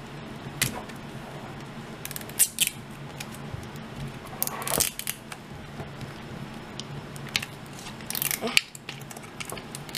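Crinkly plastic wrapping being picked at and peeled off an LOL Surprise doll ball, in short, irregular crackles and tears.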